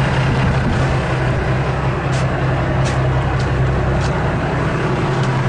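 Fishing boat's engine running with a steady low hum, under wind and sea noise, with a few faint short ticks from about two seconds in.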